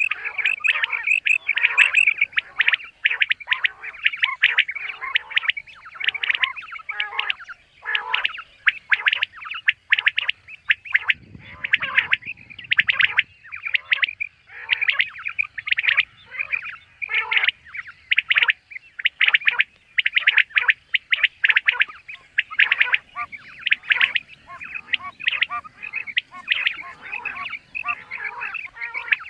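Common quail calling: short, sharp notes repeated in quick series throughout, with hardly a pause.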